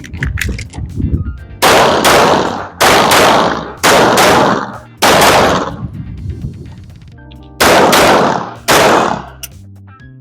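Glock 19 9mm pistol fired in a string of about eight or nine sharp shots, some in quick pairs and others a second or more apart, each with a short echoing tail. The gaps fit a drill fired while moving between positions.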